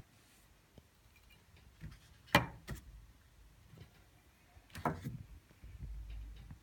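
Handling noise from a hunting knife with a metal guard being turned in the hand and set down: a sharp click about two and a half seconds in, another knock near five seconds, then a low rumble.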